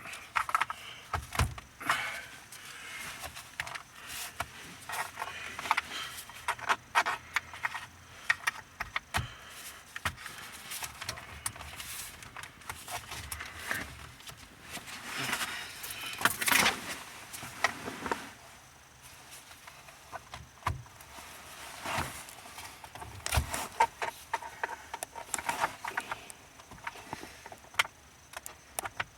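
Irregular clicks, rattles and scraping of hand work on a car's steering column: tools and plastic and metal parts being handled and pried.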